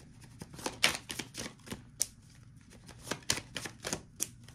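Tarot cards being handled on a table: a string of irregular sharp clicks and taps as the cards are shuffled and laid down.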